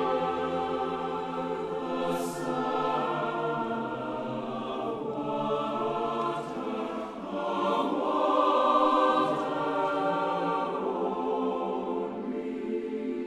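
Large mixed choir singing sustained chords in a live performance, with a few short hissing 's' consonants and a swell in loudness about two thirds of the way through.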